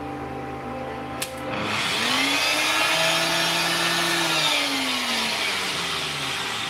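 Nutribullet blender motor starting up about a second and a half in, rising in pitch to full speed, running for a couple of seconds, then winding down near the end. The chunks of mango and pineapple are barely blended, so the run does not get the fruit blended.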